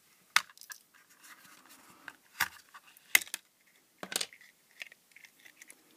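Plastic LED driver casing being prised open with a small screwdriver: faint scraping broken by several sharp plastic clicks as the case clips let go.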